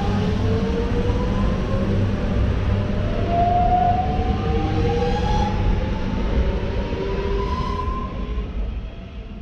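Metro Trains Melbourne X'Trapolis electric suburban train pulling out of a station. Its traction motors whine with several tones that rise slowly in pitch as it speeds up, over a steady rumble of wheels on the rails. It fades away as the train clears the platform.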